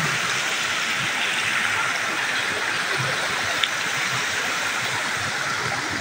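Shallow rocky river running steadily over and between boulders, a constant rush of water.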